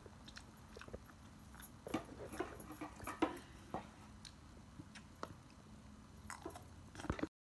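Scattered light clicks and taps of a small plastic spoon against a plate as food is scooped up, over a faint steady room hum; all sound cuts off abruptly near the end.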